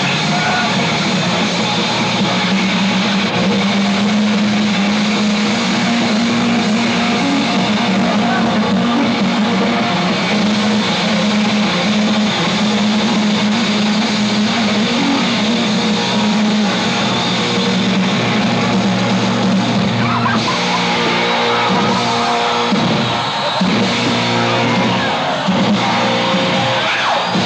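Loud recorded rock music with electric guitar played over a club sound system. Held chords give way to a choppier rhythm about twenty seconds in.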